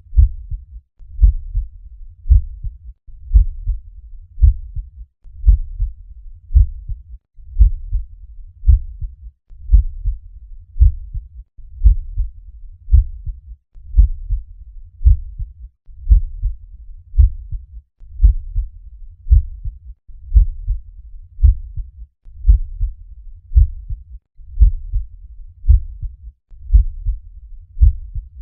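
Normal human heart sounds: a steady lub-dub of the first and second heart sounds, about one beat a second. A short recording repeats about every two seconds, with a brief break between repeats.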